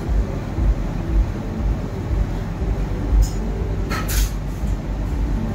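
Steady low rumble of a commercial kitchen's exhaust hood fan running, with a brief hiss about four seconds in.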